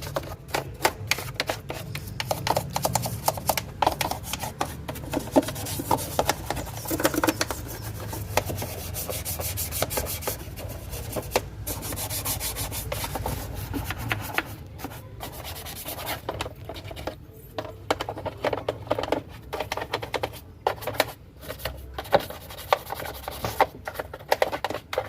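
Scrubbing and scraping strokes on a washing machine's parts as it is cleaned, with many scattered clicks and knocks; the strokes come with short pauses in the second half.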